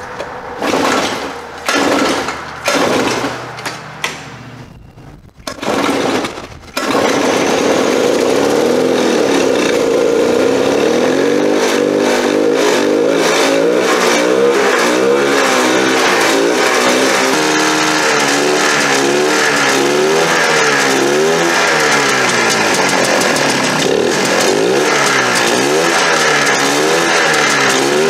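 The two-stroke single-cylinder engine of a Polaris Trail Boss 250 ATV is turned over in four short tries and catches about seven seconds in. It then keeps running, its revs rising and falling under the throttle. This is its first start after sitting for 22 years.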